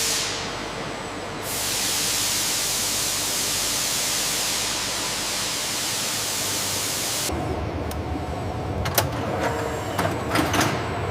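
A loud steady hiss that stops about seven seconds in, giving way to a low rumble with several sharp clicks and knocks.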